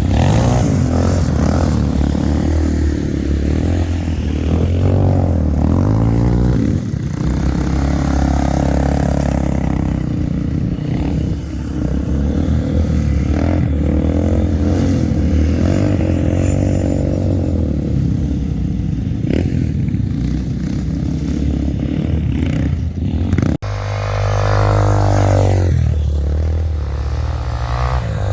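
Yamaha Warrior 350 ATV's single-cylinder four-stroke engine, big-bored to 366, running hard with its pitch rising and falling as the throttle is worked. There is an abrupt break about 23 to 24 seconds in, after which it revs again.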